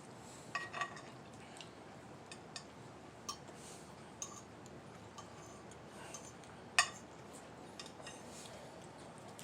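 Cutlery clinking and tapping against plates now and then during a meal, a handful of short, scattered clicks, the sharpest about two-thirds of the way through.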